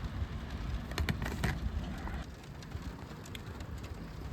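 Light rain pattering, with a low steady rumble underneath and a few small sharp clicks about a second in.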